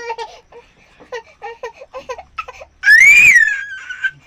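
A young girl's voice making a run of short, high vocal sounds, then a loud, shrill squeal about three seconds in that rises and falls in pitch over about a second.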